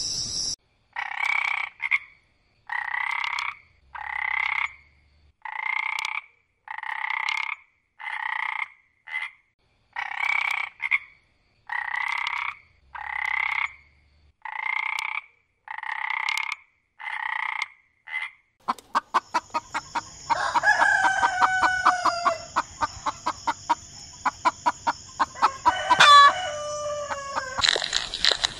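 Green tree frog croaking: a short nasal call repeated about once a second, some sixteen times. In the last third a rapid pulsing with a few falling calls takes over.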